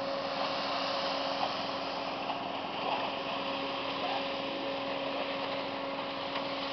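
Engine of construction machinery running steadily, a constant hum under an even rushing noise.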